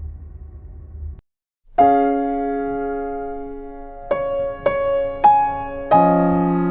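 Soft, slow piano music: after a low rumble that cuts off about a second in and a brief pause, a held chord sounds, followed by single notes struck about every half second and a new chord near the end.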